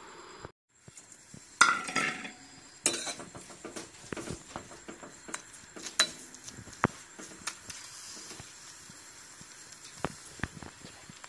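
Metal spoon scraping and clinking against a wok as silkworm larvae are stirred and fried, over a light sizzle. The loudest burst comes about one and a half seconds in, followed by repeated sharp clinks.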